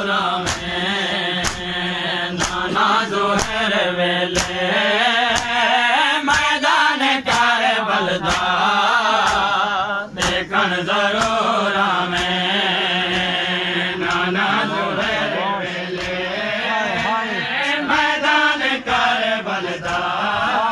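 A group of men chanting a Punjabi noha, a Shia lament for Imam Hussain, in unison. Regular sharp slaps of chest-beating (matam) keep time about once a second.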